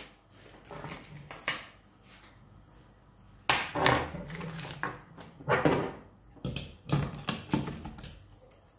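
Handling noises as gloved hands pick up a loose chainsaw chain and unwrap the guide bar: the chain links rattle and paper and plastic packaging rustle in a few irregular bursts, the loudest about halfway through.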